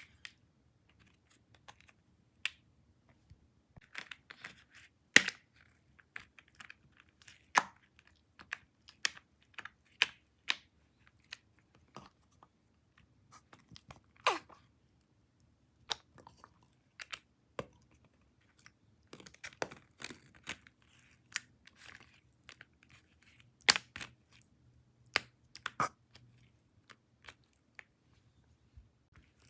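Slime being squeezed and stretched by hand, giving irregular wet pops and clicks as air pockets burst, a few of the pops with a quick drop in pitch.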